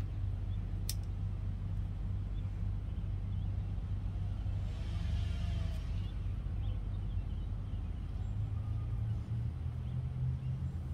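Steady low rumble, with a couple of faint sharp clicks, one about a second in and one near the middle.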